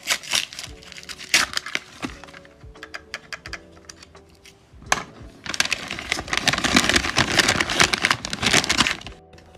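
Lined notebook paper crinkling and crackling as it is unwrapped by hand: scattered crackles at first, then a loud stretch of dense crumpling from about halfway to near the end.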